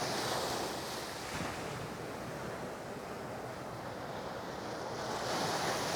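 Sea waves washing up on the beach, the surf swelling about a second in and again about five seconds in, with some wind on the microphone.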